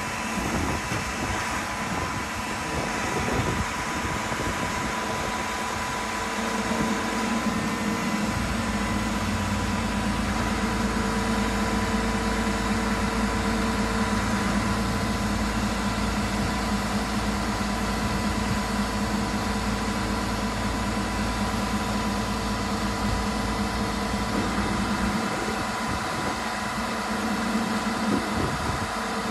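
Diesel engines of a knuckle-boom crane truck and a flatbed delivery truck running at idle, a steady hum. A deeper low rumble joins about eight seconds in and holds until near the end.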